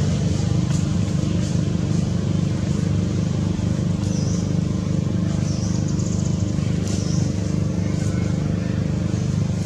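A steady low mechanical drone, like a running engine, with a few brief high-pitched squeaks about four, five and a half and seven seconds in.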